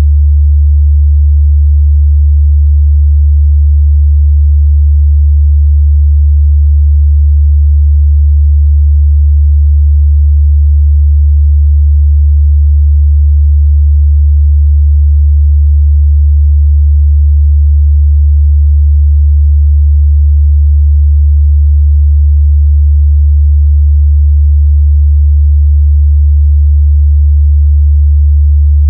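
A steady, loud 73 Hz sine-wave test tone, a single low bass hum held at constant pitch and level.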